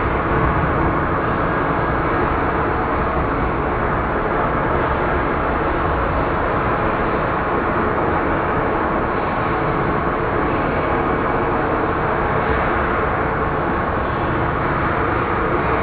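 Rain sound edited into a horror effect: a steady, dense, muffled wash of noise with faint low held tones running under it.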